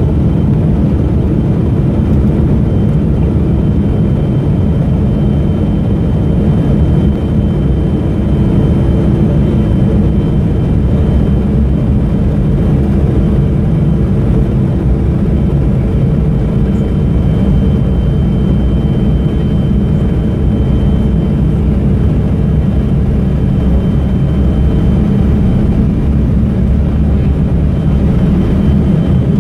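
Cabin noise of an Embraer 170 jet on the runway, heard from a seat over the wing: the GE CF34 turbofan engines running with a loud, steady low rumble and a faint steady high whine.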